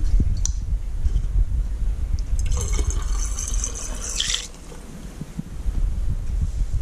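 Tequila poured from a bottle through a funnel into an empty aluminium drink can, a pour of about two seconds near the middle, over a constant low rumble.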